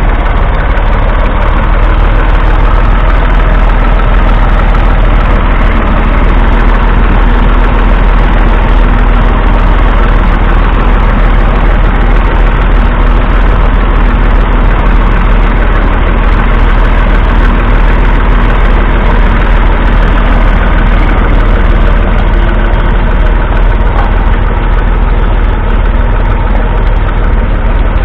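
Massey Ferguson 135's 2.5-litre three-cylinder diesel engine running steadily under load as the tractor pulls a two-furrow mounted plough through the soil.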